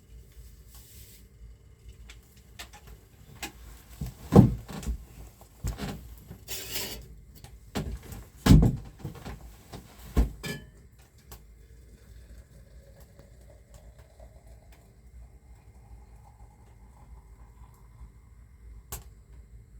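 A run of knocks and thumps over about seven seconds, two of them much louder than the rest, with a brief rustle between them, then quiet.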